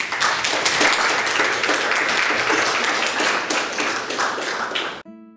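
Audience applauding. About five seconds in it cuts off abruptly to a guitar chord that rings on and fades.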